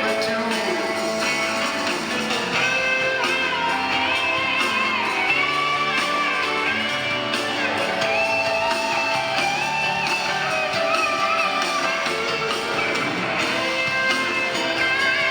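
Rock band playing live, with a melodic guitar line bending and sustaining over bass, drums and keyboards.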